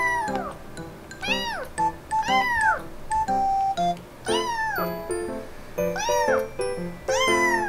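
Young kitten meowing loudly and over and over, about six high calls that each rise and then fall in pitch. It is crying because it can't find its owner. Soft background music plays under it.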